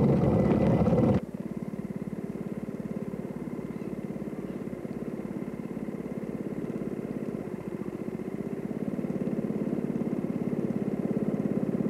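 Small engine of a home-built motorized rail cart running steadily, growing gradually louder as the cart comes closer. A louder, close-up stretch of the same running noise cuts off abruptly about a second in.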